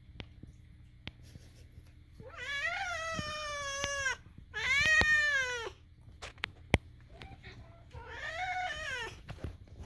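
Domestic cat giving three long, drawn-out meows, each rising and then falling in pitch, with a few sharp ticks between the calls.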